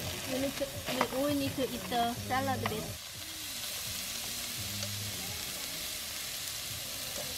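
Strips of pork belly sizzling as they fry in a pan on a portable gas stove, a steady hiss. A person's voice is heard over the first three seconds or so.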